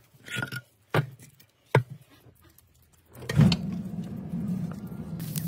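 Split firewood logs knocking together as they are laid in a tandoor, a few separate knocks, then about three seconds in the fire in the brick tandoor flares up suddenly and burns with a steady low rumble.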